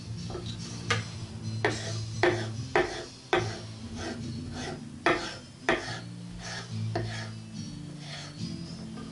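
Kitchen knife chopping through smoked ham onto a wooden cutting board, a run of sharp knocks about two a second. Background guitar music plays underneath.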